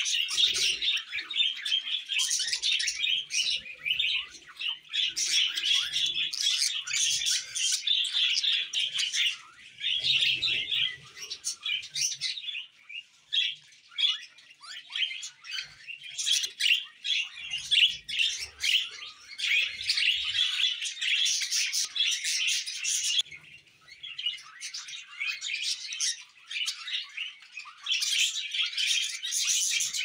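Budgerigars chattering and warbling: dense, rapid chirps in long bouts, with a couple of brief lulls.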